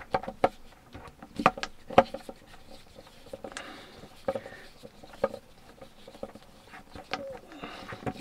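Screwdriver turning screws out of a 12 V water pump's plastic casing: irregular small clicks, knocks and scrapes of metal on plastic, with two louder clicks about one and a half and two seconds in.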